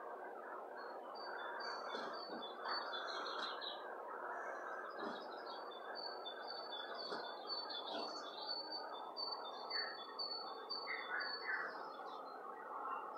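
Small birds chirping and singing from a television nature video, heard through the TV's speakers: short high notes repeated in quick runs, over a steady background hiss.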